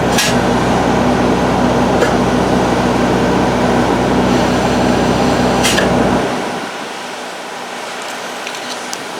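Engine-driven polyjacking equipment running steadily with a low hum and a wide noisy wash, with a few short sharp clicks. About six seconds in, the low hum dies away and the sound drops to a quieter, even hiss.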